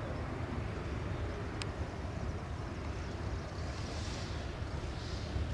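Low, steady drone of a Cessna 337 Skymaster's push-pull twin engines at a distance, mixed with wind buffeting the microphone, with gusts of hiss swelling near the end. A brief faint click about one and a half seconds in.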